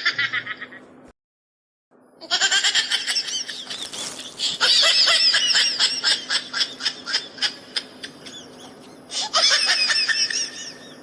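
A high-pitched laughing sound effect: a rapid cackle of short, high laugh pulses, about four a second, that starts after a brief pause and breaks off once near the end before a final burst.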